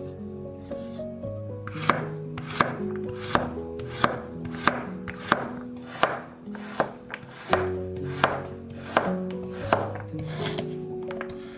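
A chef's knife chopping carrots on a wooden cutting board: sharp, even knocks of the blade against the board, about three every two seconds, over background music.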